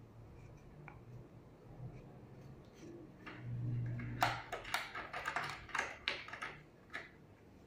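Light clicking and knocking of a wooden board being shifted and set in place on a wooden workbench against a metal bench stop. There are several quick taps a second, starting about four seconds in, just after a brief low hum.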